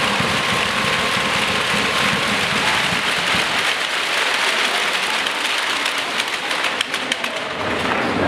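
Arena crowd applauding, the dense clapping thinning to more separate, distinct claps in the last few seconds.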